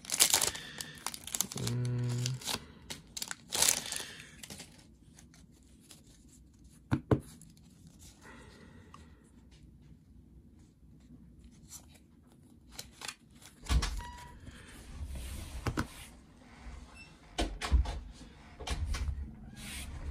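Foil booster-pack wrapper being torn open and crinkled in the first few seconds. A quiet stretch of card handling with a single click follows, then a run of low thumps and knocks near the end.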